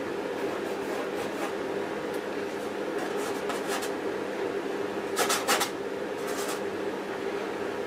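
A paintbrush scratching in short strokes: a few faint rasps about three seconds in, then the loudest pair a little past halfway and one more soon after, over a steady room hum.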